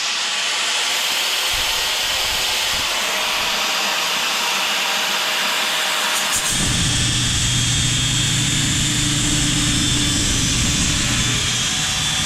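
Scrap steel being cut with a power tool: a loud, steady hiss, with a low hum coming in about six and a half seconds in.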